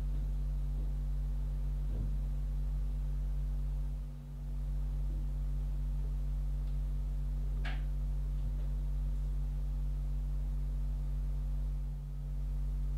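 Steady low electrical hum with a couple of faint clicks, the sharpest a little under eight seconds in.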